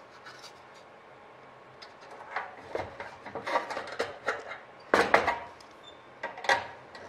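Sharp metallic clinks and knocks of sheet-aluminium parts being handled as a flap rib is set onto the aluminium spar and a cleco is taken up in cleco pliers. They start about two seconds in, and the loudest knock comes about five seconds in.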